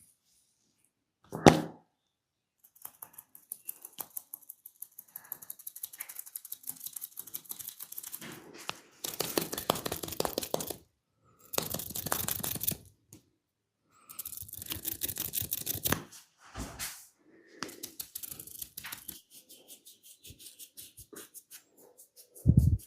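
Massage sounds: rapid runs of tapping and slapping and stretches of rubbing, separated by short pauses. There is a loud sharp hit about a second and a half in and a dull thump near the end.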